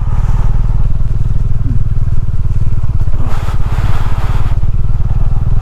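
Motorcycle engine running steadily under way on a rough muddy road, with a rushing noise for about a second midway.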